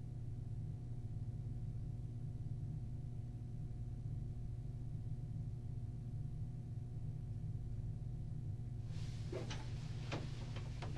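Steady low electrical hum of an interview-room recording in a quiet pause. About nine seconds in comes brief rustling and a couple of soft knocks as someone shifts in a chair.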